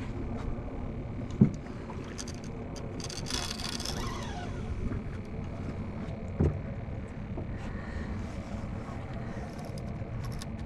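Steady rush of wind and water around a small skiff, with a sharp knock about a second and a half in, a brief hiss a little after three seconds, and a duller thump around six and a half seconds.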